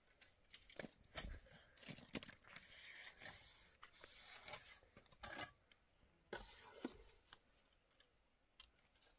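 Faint, scattered scrapes and clicks, busiest in the first six seconds and thinning out to near silence toward the end.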